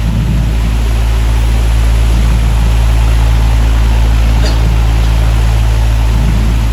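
Loud, steady low rumble with a hum and an even hiss over it, without a break; the pattern of a sound system or outdoor ambience, not speech.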